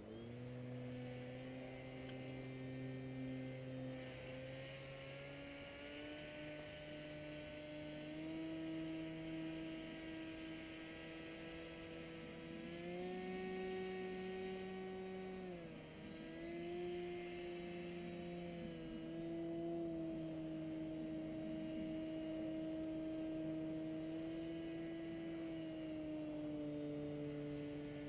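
Engine of a powered paraglider flying overhead, heard from the ground as a steady pitched buzz. Its pitch rises and falls with the throttle, climbing about 13 seconds in, dropping sharply about 16 seconds in and easing down again near the end.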